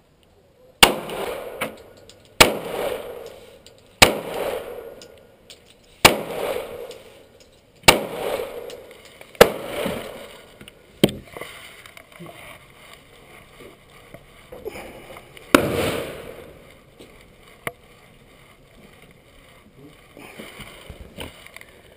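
9mm Glock 19 Gen 4 pistol firing single shots: six about every one and a half to two seconds, then one more after a pause of several seconds, each shot echoing briefly.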